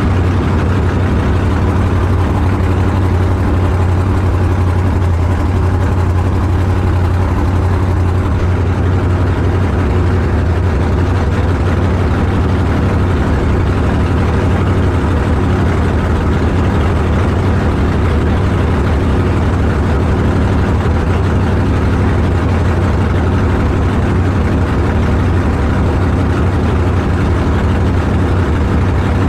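Car engine running steadily with a deep, even drone that holds the same pitch throughout.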